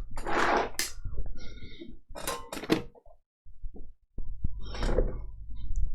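Rummaging for tools: a few short knocks, thunks and rattles of hard objects being picked up, moved and set down, with pauses between.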